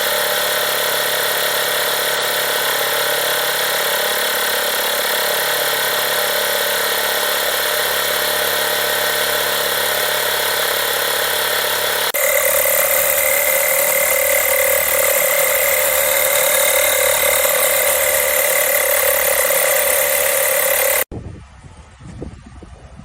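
12V dual-cylinder, dual-motor portable tyre inflator compressor running steadily. About twelve seconds in, its sound changes to a steadier, higher pitched hum, and about twenty-one seconds in it cuts off suddenly.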